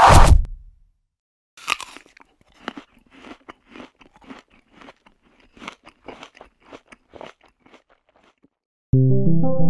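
A falling whoosh at the very start, then a crisp bite into an apple about two seconds in, followed by crunchy chewing, about two chews a second. Keyboard music begins near the end.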